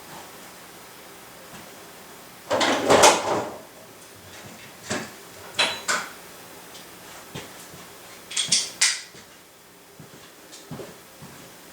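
Metal tools and parts being handled: a scraping clatter about two and a half seconds in, then single clinks and a quick run of ringing metallic clinks near the end, as sockets and lug nuts are picked up and set down.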